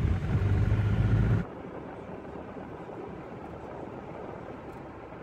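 A moving vehicle's low rumble, loud for about the first second and a half, then cutting off abruptly to a quieter, steady hiss.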